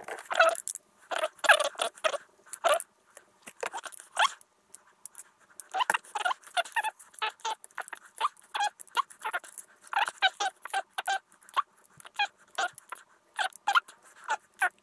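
Loose steel ball bearings from a bicycle freewheel clicking and rattling on a clear plastic tub lid as they are pushed about with a metal pick. The clicks come in quick runs with short pauses between.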